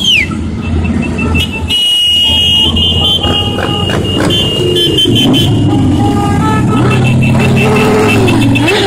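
Parade motorcycles' engines rumbling as they ride past, with a vehicle horn honking in steady tones from about two seconds in until about four seconds in.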